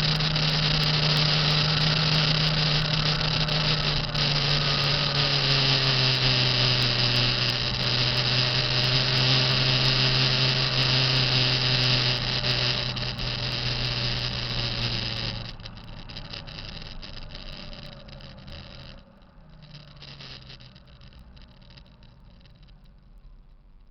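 2005 Kenworth T660's diesel engine running with a whining turbocharger, the noise the owner calls a bad sound. About fifteen seconds in the sound drops away sharply and winds down over the next few seconds.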